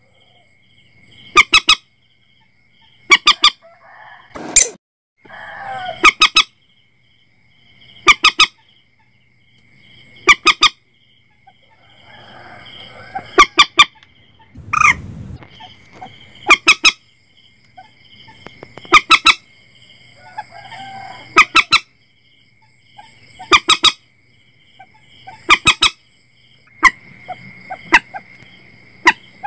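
Common moorhen (mandar batu) calls: loud, sharp notes in clusters of two or three, repeated about every two seconds as a looped lure recording. A faint steady high whine runs underneath.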